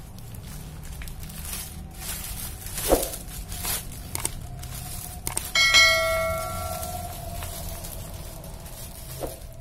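Plastic bag crinkling and rustling as a piston is handled in it. About three seconds in there is a sharp click, and just past halfway a bell ding rings out and fades over about a second: the click-and-bell sound effect of a subscribe-button animation.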